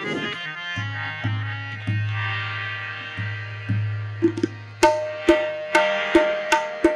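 Tabla and harmonium playing qawwali accompaniment: sustained harmonium chords under deep booming bass-drum strokes on the tabla in the first half, then sharp ringing tabla strokes about two a second from around the middle.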